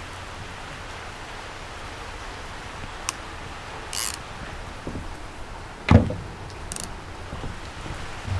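Steady rain falling on water, a constant hiss, with a couple of brief clicks and one sharp thump about six seconds in.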